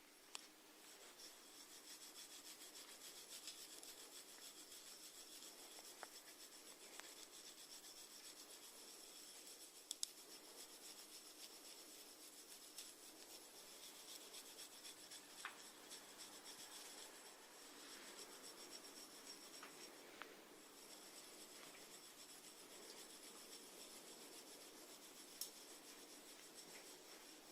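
Faint, continuous close-miked scratchy rasping from snails, with a few small sharp clicks, one of them plainer about ten seconds in.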